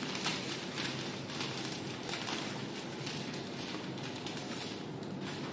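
Faint rustling and light ticking from a small foil spice sachet being shaken and pinched over a bowl, over a steady low hum.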